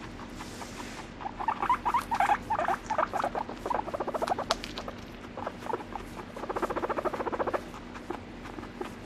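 Abyssinian guinea pig vocalizing while being stroked: bursts of short, rapidly pulsed calls starting about a second in, with a longer, even run of pulses near the end.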